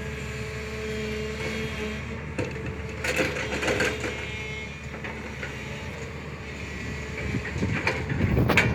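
SANY excavator's diesel engine running steadily. Louder stretches of knocking and rattling come in about three seconds in and again near the end.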